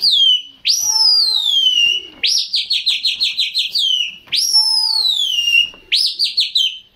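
Loud high whistling that alternates long falling whistles with quick runs of about seven short rising notes a second, the pattern repeating throughout.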